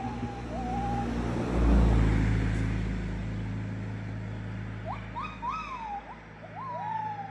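A car engine runs close by, swelling loudest about one and a half seconds in and then easing off. Birds call with short rising whistles, some sliding into longer notes.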